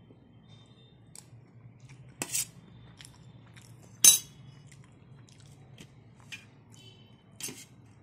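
Steel spoon clinking and scraping on a stainless steel plate. The loudest is one sharp ringing clink about four seconds in, as the spoon is set down on the plate, with softer clicks and scrapes before and after it.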